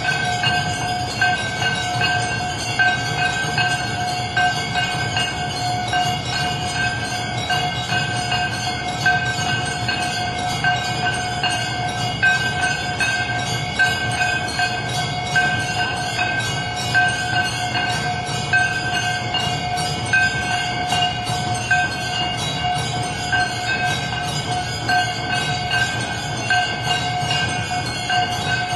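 Temple bells ringing continuously for aarti: a sustained, steady ringing tone over a regular pulsing beat.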